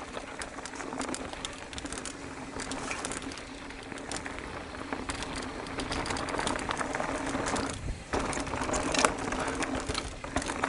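Mountain bike descending a rocky singletrack trail: tires grinding over dirt and rock and the bike rattling with frequent clicks and knocks, over a steady buzz.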